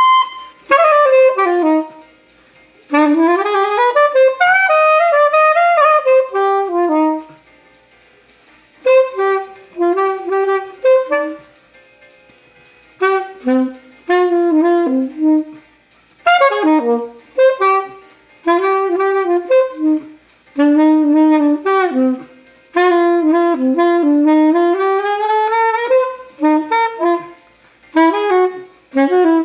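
Solo saxophone playing a slow melody in short phrases with pauses between them, as an amateur practising would play.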